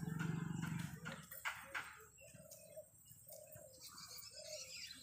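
Doves cooing: a run of short, low, evenly repeated coos, about two a second, starting about two seconds in, with a few faint higher bird chirps. A low engine hum fades out in the first second.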